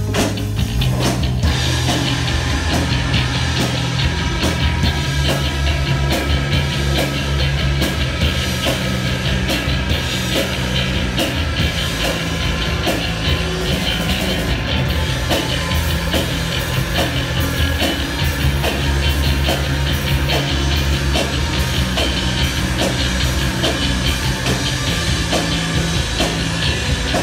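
Punk rock band playing live and loud: distorted electric guitar over bass and a steadily pounding drum kit, in an instrumental stretch.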